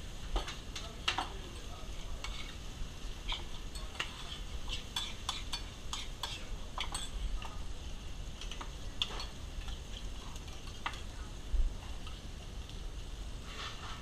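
A utensil stirring and tapping in a metal pan: scattered, irregular clinks and scrapes over a steady background hiss.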